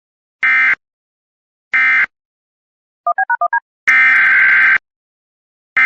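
Emergency Alert System SAME data bursts, the screechy digital warble that brackets an alert. First come two short end-of-message bursts about a second apart. About three seconds in there is a quick run of six two-tone touch-tone (DTMF) beeps. Then two longer header bursts begin the next alert.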